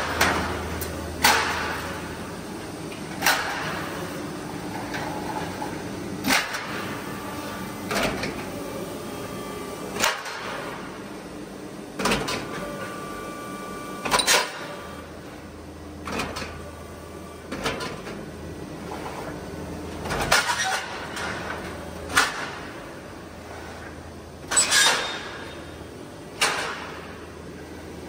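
Light-gauge steel roll forming machine running, with a sharp metallic clank about every two seconds from its punching and cut-off press working the formed steel profiles. A steady low hum of the running line lies underneath.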